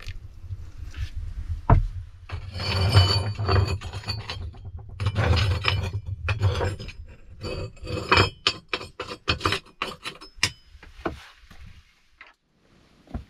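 Metal cookware being handled: an enamel kettle, its hanging chain and a steel mug clinking and rubbing, with a stretch of rattling. Near the middle a quick run of sharp knocks follows, then it goes nearly quiet apart from one last knock.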